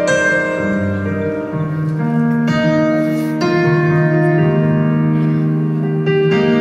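Solo piano sound from a stage keyboard playing a slow ballad, with held notes and chords changing every half second to a second.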